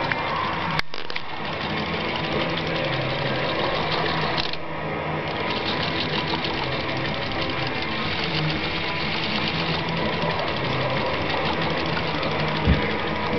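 LEGO motor and plastic gears driving a spinning centrifugal flyball governor: a steady, fast mechanical whirring rattle, with a single knock near the end.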